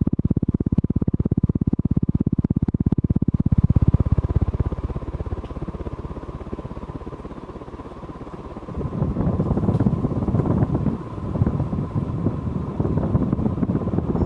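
Vintage TAT Deluxe ceiling fan running, its blades pushing air onto the microphone as a fast, even pulsing buffet with a faint steady hum. From about nine seconds in, the sound turns into a rougher, louder wind rumble.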